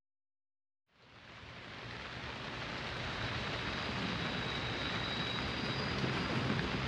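Steady rain falling, fading in from silence about a second in and growing louder over the next couple of seconds.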